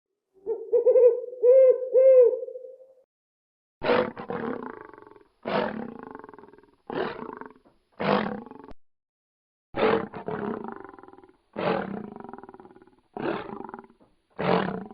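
A wavering hoot, then a lion's roaring: eight short, deep grunts, each starting sharply and fading, about every one and a half to two seconds.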